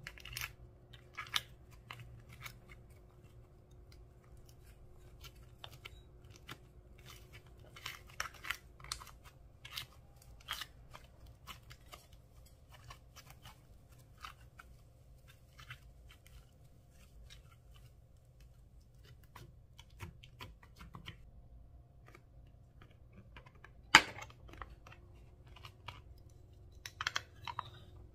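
Hands squishing and stretching slime, giving wet crackling pops and clicks from trapped air, busiest in the first half, over a faint steady hum. Near the end comes a single sharp snap, the loudest sound, followed by a short burst of clicks.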